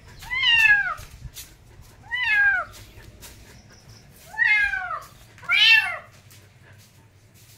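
A domestic cat meowing four times, each meow falling in pitch, the last two close together.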